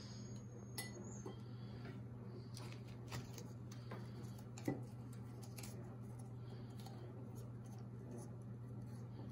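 Faint handling sounds: a copper strip and metal alligator clip tapping and clicking against a drinking glass as they are set in place, with one sharper clink about halfway through, over a steady low hum.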